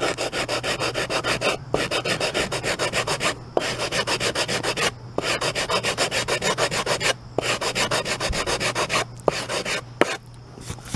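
Medium-grit sandpaper on a wooden block being rubbed quickly back and forth over hardened water putty on particle board, about four strokes a second in runs with brief pauses, stopping near the end.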